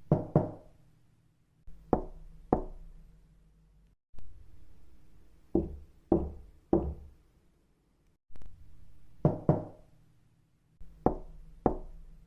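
Knocking in short separate groups of sharp raps: two, then two, then three, then two, then two, each rap with a brief ringing tail.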